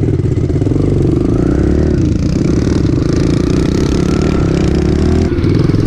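Kawasaki KLX110 pit bikes' small single-cylinder four-stroke engines running under throttle as they ride off, the engine pitch rising and falling with the throttle.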